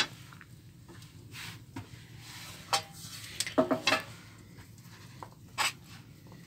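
Dishes being handled on a kitchen counter: a few scattered knocks and clinks of a metal tray and a bowl, with a cluster of them about three and a half seconds in.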